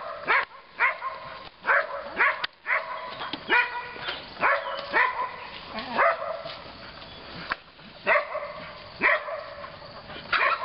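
Excited dog barking and yelping over and over, short high-pitched barks roughly once a second.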